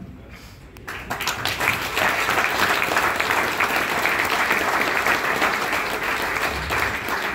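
Audience applauding: a dense spell of hand-clapping that starts about a second in and goes on steadily, easing off near the end.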